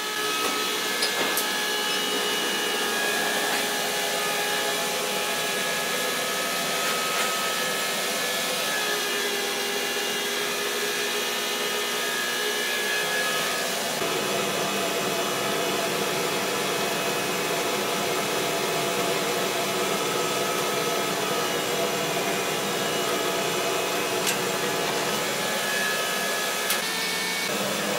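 The laser cutter's coolant water pump running with a steady whir and several whining tones; the tones shift slightly about 9 and 14 seconds in. It runs loudly, and has been called a screaming pump.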